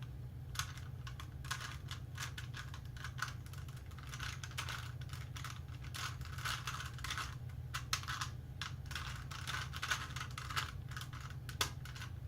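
Plastic clicking and clatter of a Rubik's Cube's layers being twisted in quick, irregular turns, over a steady low hum.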